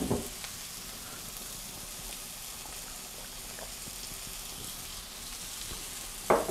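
Onion, green chillies and peanuts frying in oil in a wok, a steady quiet sizzle. A short voice sound cuts in near the end.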